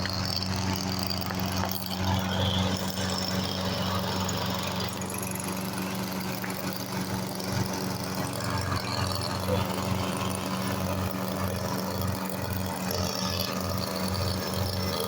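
Lawn mower engine idling steadily.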